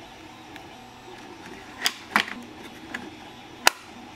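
Sharp plastic clicks and taps as a battery pack is fitted into the hood compartment of a WPL B36 1/16 RC truck and the hood is closed. There are four or five clicks in the second half, a quick double click among them, and the loudest comes near the end.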